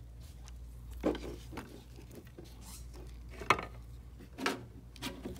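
Hard plastic external ink tanks of a continuous ink supply system clicking and knocking as gloved hands handle and move them. There are a few light knocks, with the sharpest click about three and a half seconds in.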